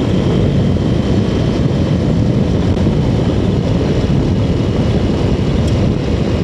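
Motorcycle riding at about 40 mph: steady engine and wind noise with no change in pace.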